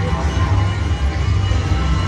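Slot machine game music playing over a steady low rumble of casino floor noise.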